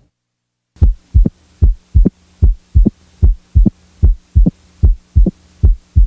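Recorded heart sounds of a patient with mitral stenosis, starting about a second in: a steady beat of about 75 a minute. Each second heart sound is followed closely by the opening snap, a short, high-pitched click made as the stenosed mitral valve snaps open in early diastole. A low steady hum runs underneath.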